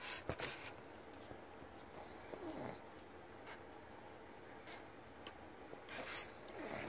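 Newborn pug puppies nursing at their mother, faint, with two short falling squeaks, one about two and a half seconds in and one near the end, among soft rustling and clicks of fur and blanket.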